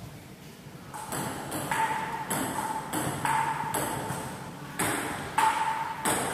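Table tennis rally: the ball clicking back and forth off the paddles and the tabletop, about ten sharp clicks starting about a second in, each with a brief ringing.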